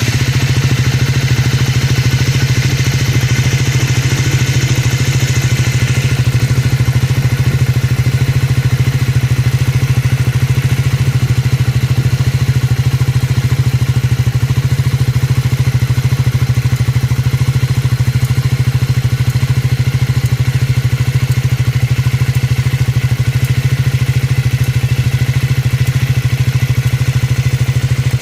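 Triumph 400 (Scrambler 400X / Speed 400) single-cylinder engine idling steadily just after a start, a little brighter and busier for the first several seconds before settling. It carries the engine noise that the owner tags as an abnormal noise.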